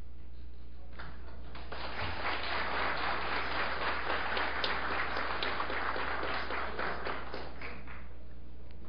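Audience applauding in a large hall: the clapping swells about a second and a half in and dies away near the end.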